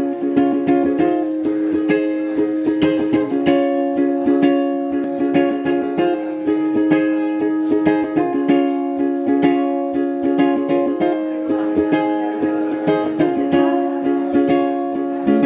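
Ukulele strummed in a steady rhythm, with the chord changing every two to three seconds.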